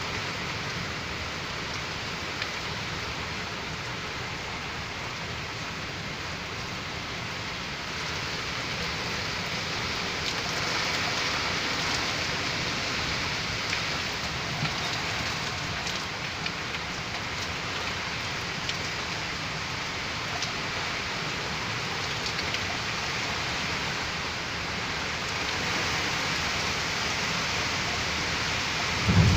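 Heavy rain falling steadily in a severe storm, an even hiss that grows a little louder partway through, with a short low thump right at the end.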